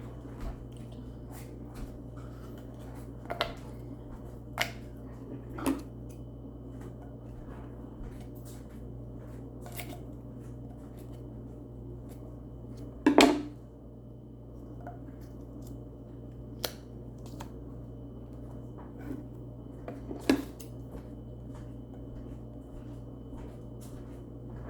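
Hands handling small plastic toys and packaging: scattered clicks and taps, the loudest about thirteen seconds in, over a steady low hum.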